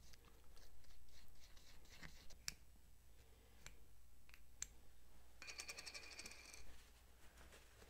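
Faint scraping and light clicking of a plastic mixing paddle stirring two-part epoxy in a small 3D-printed plastic cup, the paddle working against the cup's lip. A few sharp ticks follow, then a brief buzzy scrape a little over a second long near the end.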